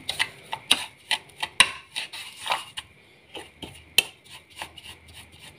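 Metal spoon scraping and clicking against a plate while mashing butter, brown sugar and cinnamon powder together into a paste. Irregular taps and scrapes, busier in the first three seconds.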